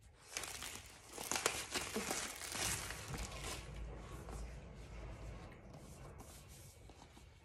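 Plastic wrapping being torn off an iPad box and crinkled, loudest in the first three seconds or so, then fading to lighter rustling as the cardboard box is handled.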